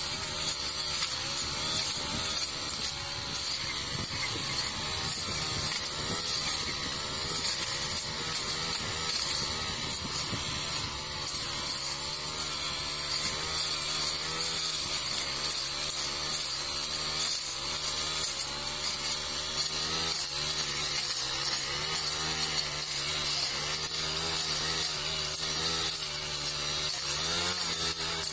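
A backpack brush cutter's Honda GX four-stroke engine runs continuously under load while the blade cuts through thick brush and vines. Its pitch wavers up and down as the blade bites into the growth.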